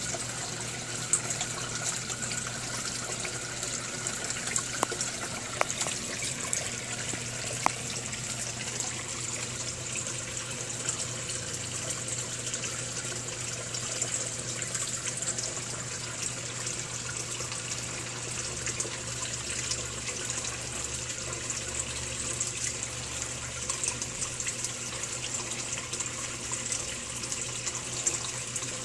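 Small pond fountain splashing steadily, its jet of water falling back onto the pond surface, with a few brief clicks in the first several seconds.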